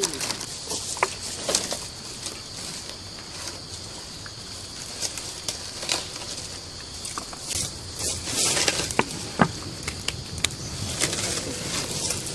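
Dry palm fronds being lit and catching fire, with scattered sharp crackles that grow louder and more frequent in the second half as the flames take hold.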